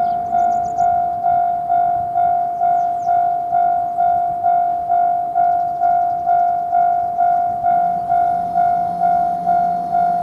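Japanese railway level-crossing warning bell ringing its steady 'kan-kan', a loud single-pitched ding repeating a little over twice a second. A low steady hum joins about eight seconds in.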